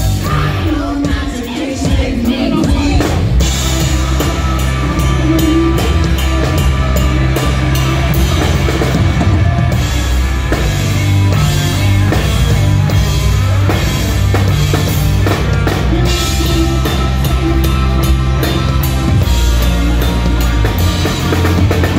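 Live rock band playing loud: drum kit, electric guitars and bass guitar. The bass and drums drop out briefly about two seconds in, then the full band comes back in.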